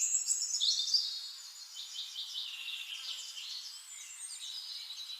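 Several birds chirping and singing, their high calls overlapping, over a faint steady hiss.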